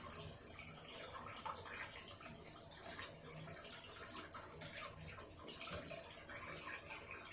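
Hitachi BeatWash BW-V80A washing machine running with water splashing and sloshing in the tub, over a low steady hum.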